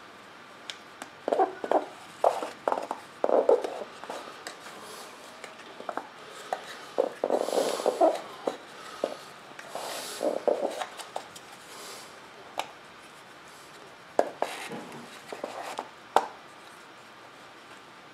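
Drag-chute fabric rustling, with irregular light clicks and knocks of the small chute canister, as the chute is packed into it by hand.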